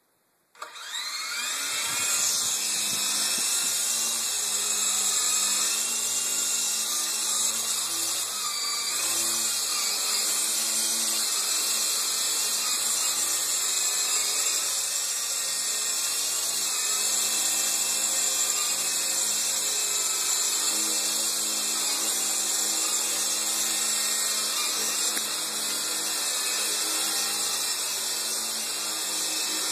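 Light Blade 2 coaxial RC helicopter's small electric motors spinning up about half a second in, then a steady high-pitched whine with rotor noise as it lifts off and flies.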